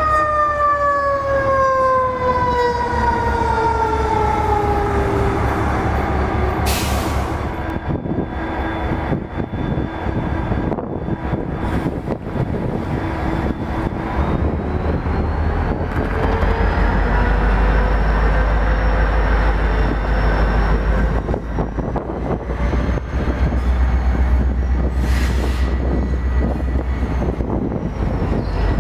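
EMD diesel locomotive engines running in a rail yard. A whine falls in pitch over the first several seconds. About halfway through, the engine rumble grows heavier under a rising high whine, with two short bursts of hiss.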